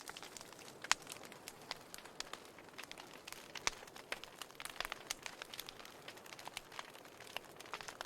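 Wood fire crackling in a fireplace: irregular sharp pops and snaps over a soft hiss, with a few louder pops about a second in and around the middle.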